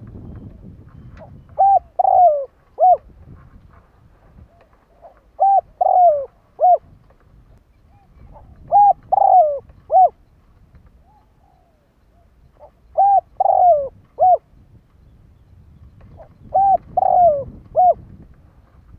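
Spotted dove cooing: five phrases of three or four coo notes each, repeated about every four seconds.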